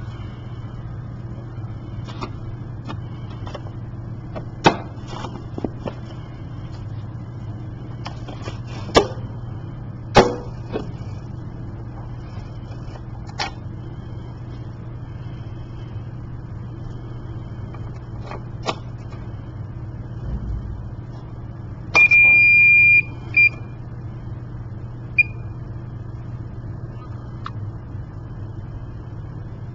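Sharp plastic clicks and knocks as a syringe is clamped into an IVAC PCAM syringe pump and its clear lid is shut, over a steady low hum. About 22 seconds in the pump gives a loud high-pitched beep lasting about a second, then two short beeps, as it is switched on.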